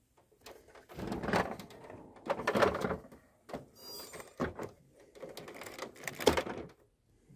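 Plastic body and clear canopy of an Action Man Silver Speeder toy car being handled: irregular rubbing and knocking in several bursts, with a sharp knock near the end.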